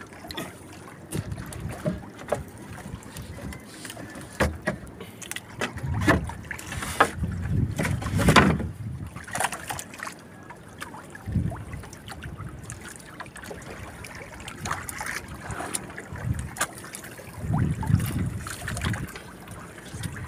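Water sloshing against a wooden outrigger boat, with irregular knocks and thumps on the hull as a trap rope is hauled in over the side; a louder bump comes about eight seconds in.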